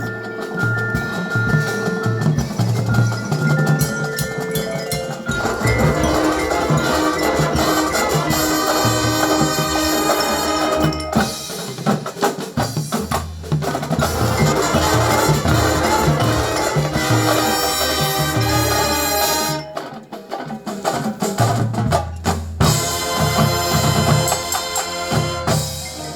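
High school band playing, with drums and mallet percussion such as marimba and glockenspiel under sustained ensemble notes; the music briefly drops out about twenty seconds in before coming back.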